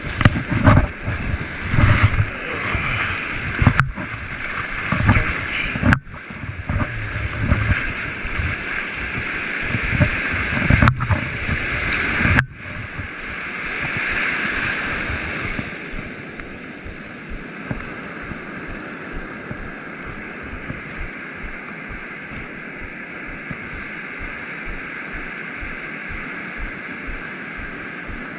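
Ocean surf washing and breaking in the shallows, with heavy buffeting and rubbing on the microphone over the first twelve seconds or so. After that the surf continues as a steadier hiss that swells once.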